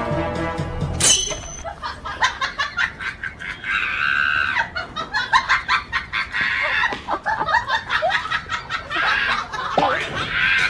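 Music that cuts off about a second in, then a chicken squawking in a scuffle with a dog, among scattered clattering clicks.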